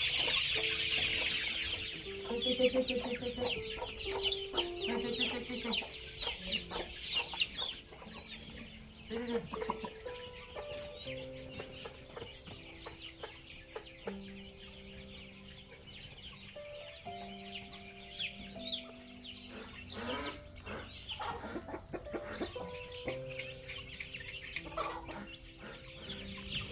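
Chickens clucking and cheeping in many short, high calls, busiest in the first several seconds, over soft background music of slow held notes.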